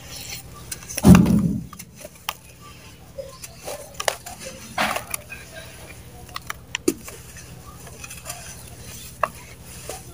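Mud balls crushed and crumbled by hand in a plastic tub: scattered crackles and crunches of breaking clumps, with a heavy thud about a second in.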